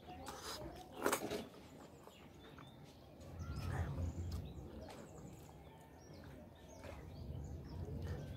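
A person eating with their hands: a loud wet lip smack from sucking food off the fingers about a second in, then quieter mouth and chewing noises. Small birds chirp in the background, and a low rumble rises from about three to five seconds in.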